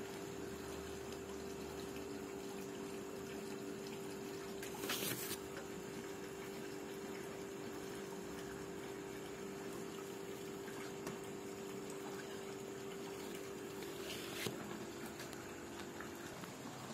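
Small hobby air compressor running with a steady hum while paint is sprayed on the model, with two short bursts of spray hiss about five seconds in and again near the end; the hum stops just before the end.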